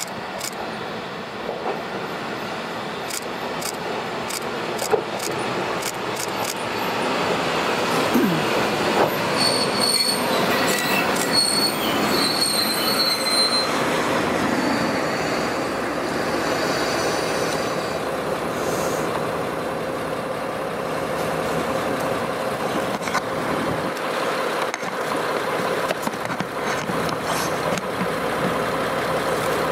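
KiHa 47 diesel railcar running in over the rails and slowing for the station, its diesel engine running under a broad rumble. A few sharp clicks come in the first seconds, and high thin wheel and brake squeal rings out from about a third of the way in for several seconds as it passes beneath.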